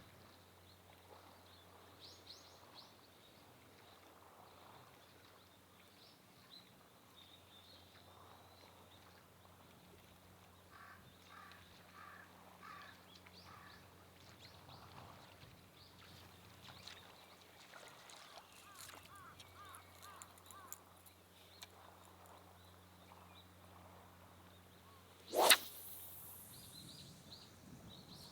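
Quiet outdoor ambience with faint, scattered bird chirps and calls, some in short rapid series. Near the end comes one brief, loud rising whoosh.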